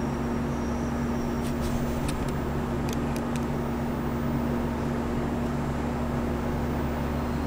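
New York City subway train of R62A cars humming steadily at a station, with a constant low electrical drone and a few light clicks about two to three seconds in.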